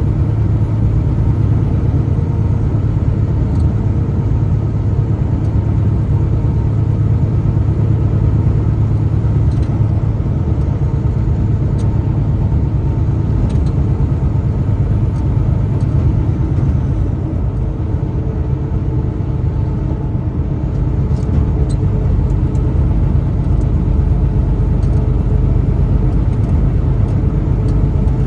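Truck engine and road noise while driving: a steady low rumble that eases slightly for a few seconds about two-thirds of the way through.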